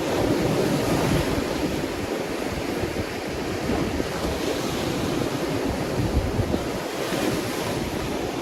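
Ocean surf: waves breaking and washing in a continuous rush, swelling louder in the first second or so, with wind rumbling on the microphone.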